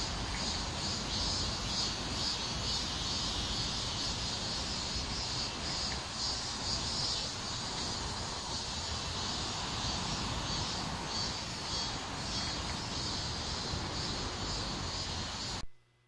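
Steady outdoor ambience: insects chirring in a high band over low background noise, cutting off suddenly near the end.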